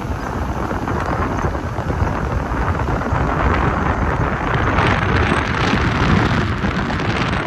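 Road and wind noise of a moving car: a steady rumble with a rushing hiss, growing louder about midway and easing slightly near the end.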